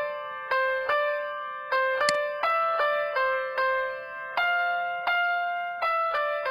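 Music: a keyboard melody of struck notes, each fading before the next, with a new note or chord about every half second.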